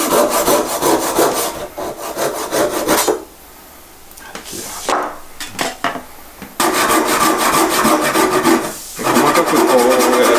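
Hand saw crosscutting a bark-covered branch with light, quick rasping strokes. The strokes stop for about a second and a half about three seconds in, come back unevenly, then run steadily again from about six and a half seconds.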